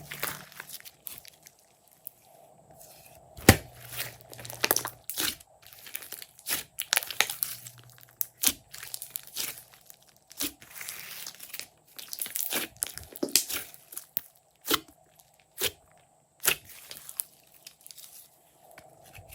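Glossy slime being squished and stretched by hand, making irregular sticky pops, clicks and crackles, with one loud snap about three and a half seconds in.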